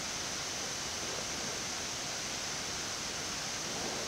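Steady rushing hiss of a Boeing 787 flight deck while taxiing, with both engines running at idle; it holds even throughout.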